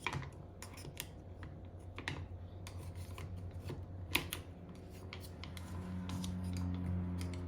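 Makeshift chopsticks clicking and scraping against wet tumbled rocks in a rock tumbler barrel: a run of small, irregular clicks. A low steady hum grows louder in the second half.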